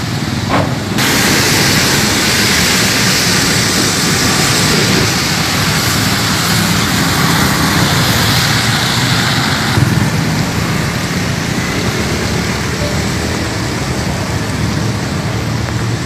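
Steady hiss of falling rain with a low wind rumble. The hiss turns louder and brighter abruptly about a second in and eases back near ten seconds.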